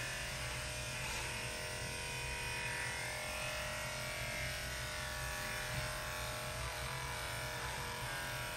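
Electric dog-grooming clipper running steadily with an even motor hum while clipping a Shih Tzu's coat.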